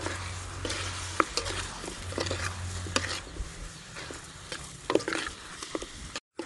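Chicken drumsticks sizzling in oil in a metal wok while a metal spatula stirs and turns them, with repeated scrapes and clicks of the spatula against the pan. The sound breaks off briefly near the end.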